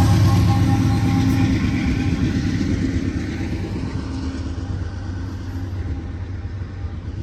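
Rear General Electric diesel-electric locomotive, the distributed power unit at the tail of a Union Pacific intermodal train, passing and pulling away, its steady engine drone fading as it goes.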